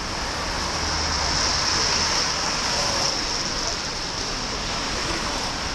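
Traffic passing on a wet multi-lane road: a steady hiss of car tyres on wet asphalt, swelling a little as cars go by about a second and a half in.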